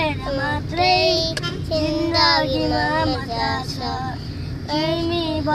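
A young girl singing a Nepali song in long held, wavering notes, over the steady low rumble of a moving car.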